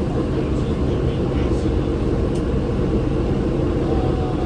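Orion VII Next Generation transit bus heard from inside the passenger cabin: a steady, continuous drivetrain rumble with a constant hum.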